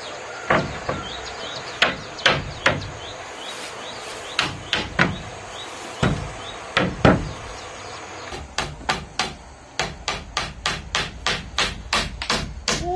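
A hammer drives a nail into a wooden plank. First come scattered, uneven taps, then from about two-thirds of the way in a steady run of blows, about three a second.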